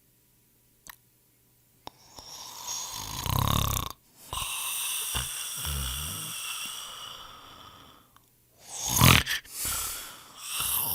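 A person snoring: a low snore on the in-breath about two seconds in, a long breathy out-breath that fades away, then a loud snort near the end.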